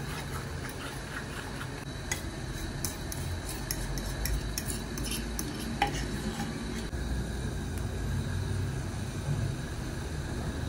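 A utensil scraping and tapping against a bowl as pancake batter is scraped out into a hot, oiled frying pan: a quick run of light clicks in the first half, with one sharper tap about halfway. A faint frying sizzle and a steady low rumble run underneath.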